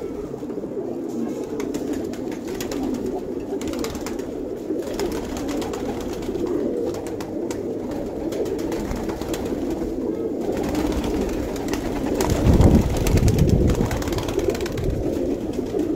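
A flock of domestic pigeons cooing together, many overlapping coos forming a steady drone. About twelve seconds in, a louder low rumble lasts a couple of seconds.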